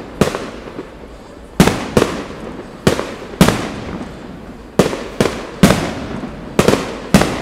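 Aerial fireworks shells bursting: a quick run of about a dozen sharp bangs, often in pairs or threes, each with a ringing, echoing tail.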